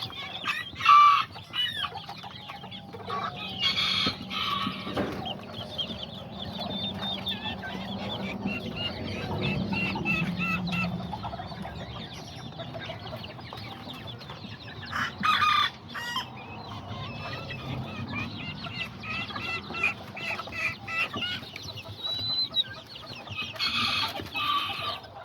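A flock of Kikiriki bantam chickens clucking and calling, with roosters crowing four times: about a second in, around four seconds, midway, and near the end.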